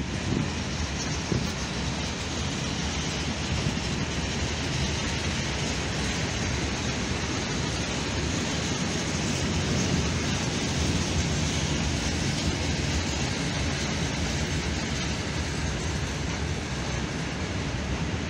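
Long freight train of open coal wagons rolling past, with a steady rumble and rattle of wagon wheels running over the rails.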